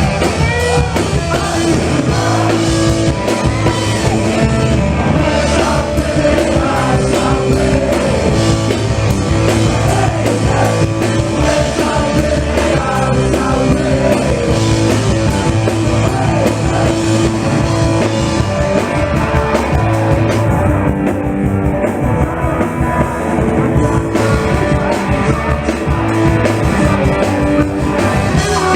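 Punk rock band playing live, with a sung lead vocal over loud guitars and drums.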